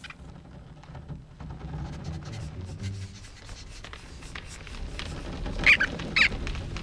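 Animated cartoon soundtrack playing back: a low rumbling ambience that slowly grows louder, then two short high squeaks from the cartoon rodents about half a second apart near the end.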